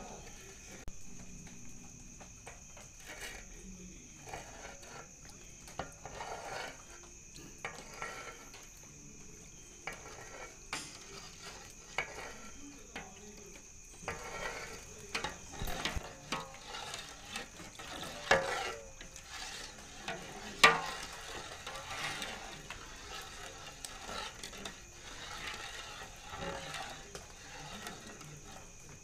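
Metal utensils knocking and scraping against large cooking pots at irregular intervals, with a sharp clank about two-thirds of the way in.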